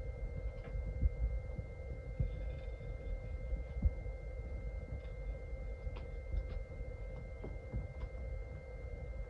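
Hands pressing and smoothing a glued paper heart onto a sheet of paper on a table: soft thumps and light rustles, over a steady hum.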